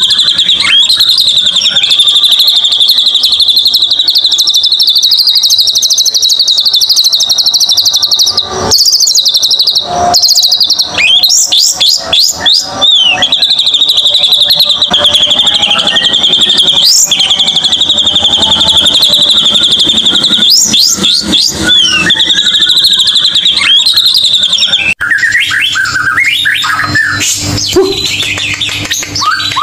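White-rumped shama song: long trills held at one high pitch for several seconds at a stretch, broken by bursts of quick rising and falling whistles. About 25 s in the song changes to lower, shorter whistled phrases.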